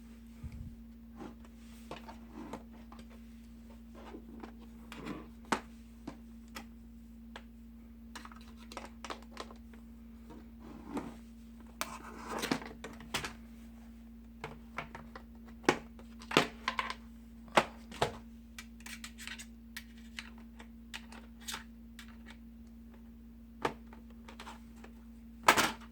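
Bottom cover of an Asus Zenbook laptop being pried off after its screws are out: irregular clicks, snaps and short scrapes as the cover's clips let go, with a sharper snap near the end.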